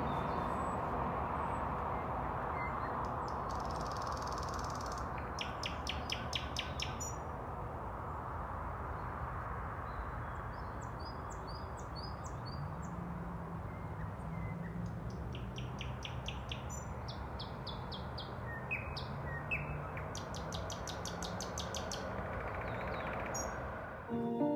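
Wild songbirds singing: several rapid trills of repeated high notes and scattered short chirps over a steady background hiss. Music cuts in at the very end.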